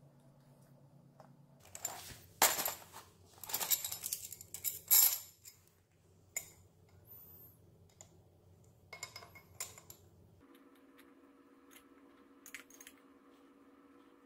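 Small galvanized steel angle brackets clinking and clattering against each other in a plastic tub as a hand rummages through them. The clatter is loudest between about two and five seconds in, followed by a few lighter clicks.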